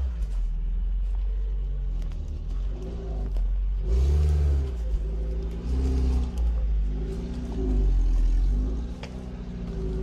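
A Lada Niva's engine revving up and down again and again as the 4x4 crawls between trees on soft ground. Its pitch rises and falls every second or two, with the strongest pulls about four and eight seconds in.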